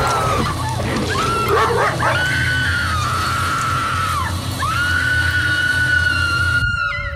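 Horror film soundtrack: high wailing, screech-like tones that bend downward at their ends over a steady low drone. They cut off abruptly near the end, leaving a single lower tone ringing on.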